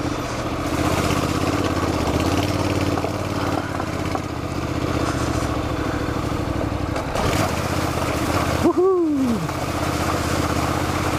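Honda NC700X DCT's 670 cc parallel-twin engine running steadily under way on a dirt track, with wind and road noise over it. A short downward-sliding tone cuts in about nine seconds in.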